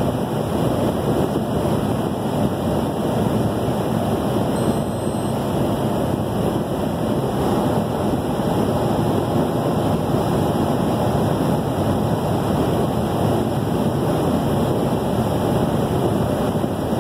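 Steady road and wind noise of a vehicle cruising at highway speed, heard from inside the cab.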